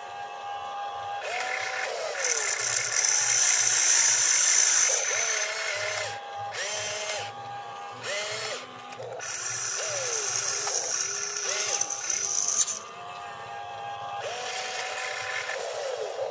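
Electric motors of a toy RC excavator whining in stop-start bursts, pitch rising and falling as the boom, arm and upper body move and slew, with a high hiss over the louder stretches.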